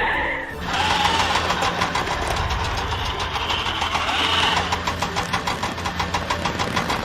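Vehicle engine running with a fast, even knocking rhythm, starting about half a second in.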